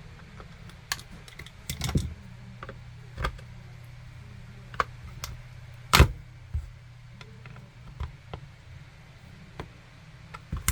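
Irregular clicks, snaps and knocks of a hard plastic power bank case being pried apart with a screwdriver, the glued internal latches giving, with the loudest snap about six seconds in. A steady low hum runs underneath.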